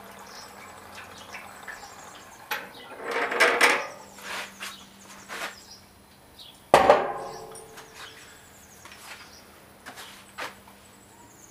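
Metal knocks and clanks as a metal gas can is handled and put aside after refuelling a lawn mower, with a clattering spell about three seconds in and a single sharp, ringing metal clank near seven seconds, the loudest sound. Faint bird chirps in the background.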